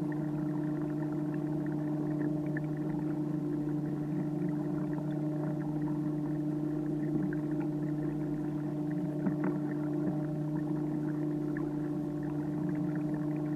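Electric motor on a kayak running at a steady speed: a constant, even-pitched hum with overtones above it.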